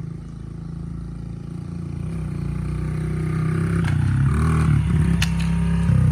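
A motor vehicle's engine running close by, growing steadily louder as it approaches, with a few sharp clicks in the second half.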